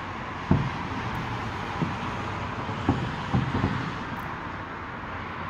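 Distant aerial fireworks bursting as dull, low booms, about half a dozen spread unevenly, the loudest right at the end, over a steady background rumble.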